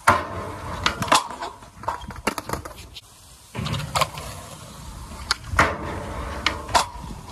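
Skateboard on a concrete ledge: sharp clacks of the board popping, hitting the ledge and landing, with wheels rolling on concrete in between. The clacks come in a scatter, the loudest right at the start, and the rolling rumble picks up again about halfway.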